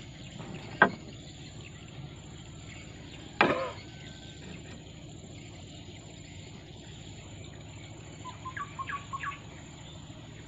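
Two sharp knocks of fishing tackle being handled against the boat, the second louder with a brief ringing tail, then a quick run of short rising bird chirps about eight seconds in, over a steady background of insects.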